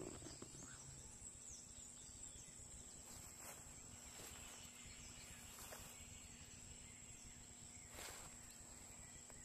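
Near silence: faint outdoor background with a steady, thin, high-pitched tone and a few soft clicks.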